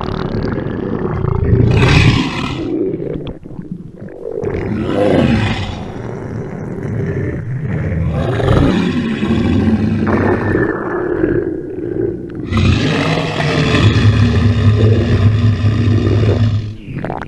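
Exaggerated cartoon stomach-rumble sound effect: a loud, long growling rumble whose pitch slides up and down, with short lulls about four seconds in and again near twelve seconds.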